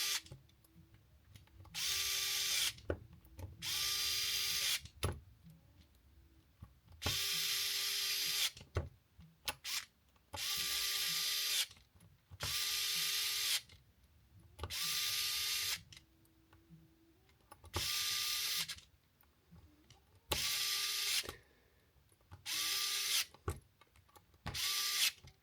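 Small cordless drill driving beadlock ring screws into an aluminium RC crawler wheel. It runs in about ten short bursts of roughly a second each, spinning up at the start of each. Small clicks come in the gaps between them.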